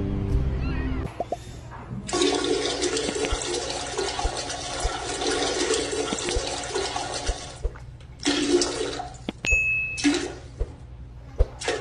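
Toilet flushing: a rush of water lasting about five and a half seconds, followed by several shorter gurgling rushes as the bowl refills.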